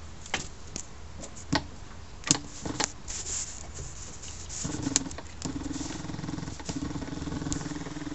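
A few sharp clicks and taps as a wire is connected at the car battery terminal, then, from about four and a half seconds in, an electric fuel pump starts and runs with a steady hum.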